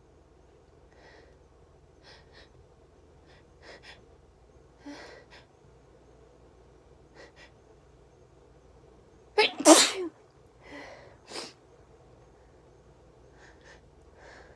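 A person sneezing: a run of short, faint breaths builds up to one loud sneeze about nine and a half seconds in, followed by two smaller breaths.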